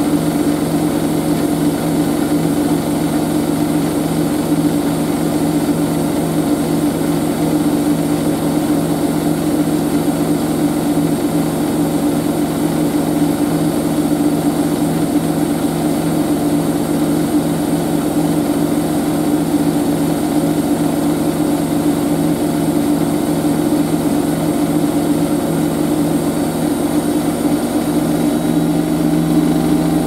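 Siemens Siwamat IQ 716 washing machine running with a steady motor and drum hum, two minutes from the end of its programme. The hum changes slightly near the end.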